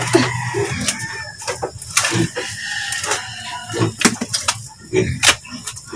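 A rooster crowing and chickens clucking, with a shovel repeatedly scraping and scooping through dirt and manure.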